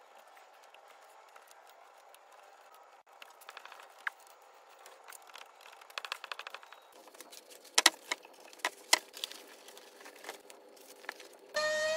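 Small wooden veneer pieces clicking as they are pressed into place, then a clear plastic vacuum bag crinkling and crackling as it is handled, with several sharp loud clicks. About a second before the end a small handheld vacuum pump on the bag's valve starts with a steady whine that rises slightly in pitch.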